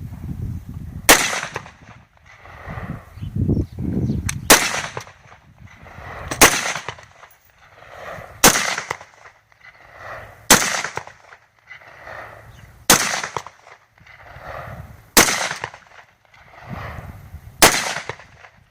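AR-15 rifle fired semi-automatically, eight single shots spaced about two seconds apart, each a sharp crack with a short echo.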